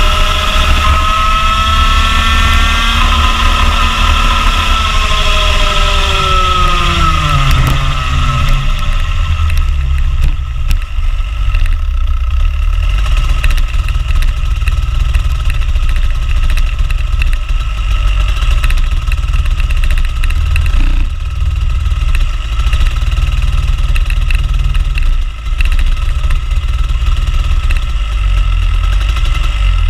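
Rotax Junior Max two-stroke kart engine running, its pitch falling steadily over the first several seconds as the kart slows, then a low steady rumble as it carries on at low speed.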